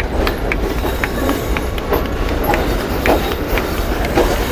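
Train rumbling steadily, with scattered metallic clicks and faint voices in the background.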